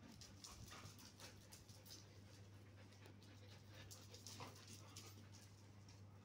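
Faint panting and quick scuffles of a husky and a tan dog play-fighting, paws scrabbling on paving stones, over a steady low hum.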